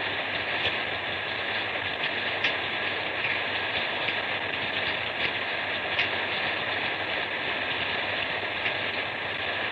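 Steady rain falling, a continuous even hiss with a few faint ticks of drops.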